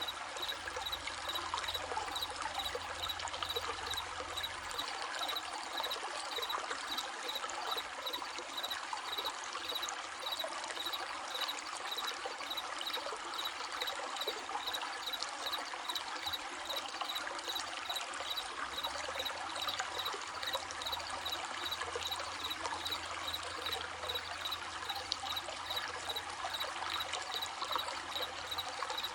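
Running stream babbling steadily, with crickets chirping in an even, repeating rhythm over it.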